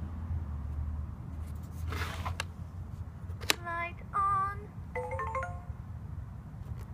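Electronic toy play house: a click about halfway through, then a short tinkly jingle of electronic notes from its speaker for about two seconds.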